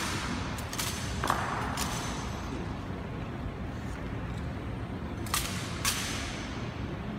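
Sharp knocks and slaps of a ceremonial honor guard's rifle drill, echoing in a large stone hall: two pairs of strikes, one a little over a second in and another about five and a half seconds in.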